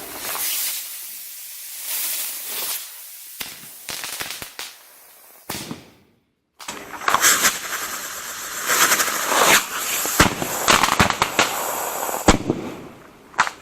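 Firework rockets burning with a hiss and sharp cracks, a brief silence about six seconds in, then a dense run of crackling pops and bangs over continued hissing.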